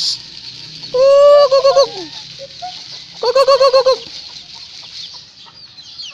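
Native chickens clucking in two quick runs of repeated calls, one about a second in that opens with a held note, and another about three seconds in.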